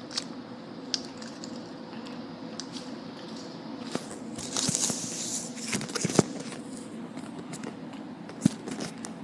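Rustling and scattered clicks of a phone being handled with its lens covered, with a louder rustle about halfway through, over a faint steady hum.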